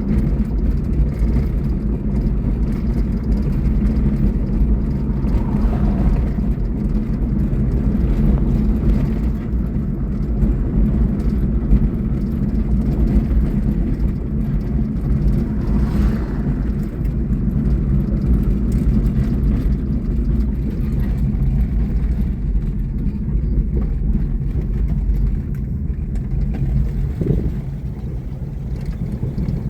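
Small truck driving, its engine and road noise a steady low rumble.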